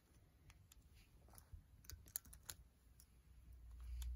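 Faint, scattered clicks of the plastic pieces of a magnetic 3x3 speedcube knocking together as edge pieces are handled and fitted into the partly rebuilt cube. A low rumble builds near the end.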